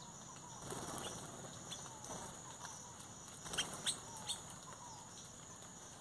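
Small black bird's wings flapping as it takes off, with a rustling burst about a second in and three sharp flaps between three and a half and four and a half seconds in. Faint bird chirps behind.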